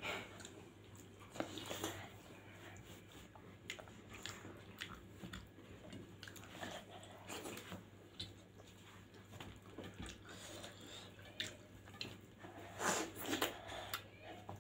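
Close-up eating sounds of rice and lentils eaten by hand: soft chewing and wet lip smacks, with fingers gathering rice on steel plates. The smacks grow louder near the end.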